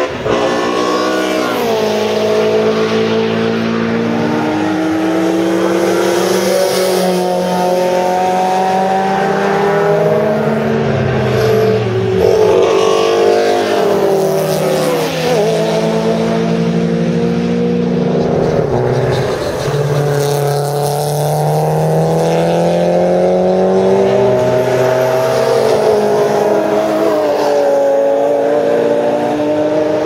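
Several cars driven hard past, among them a Mercedes 190E saloon. Their engines climb in pitch through the gears, then drop sharply now and then as the drivers lift and shift down, one car after another with no break.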